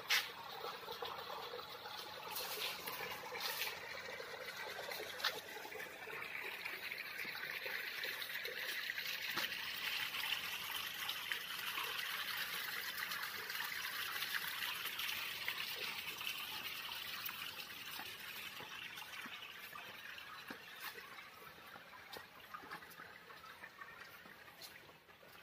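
Water running and splashing into a swimming pool from an inlet pipe, a steady trickling rush that grows louder towards the middle and fades near the end. A sharp knock comes at the start and another about five seconds in.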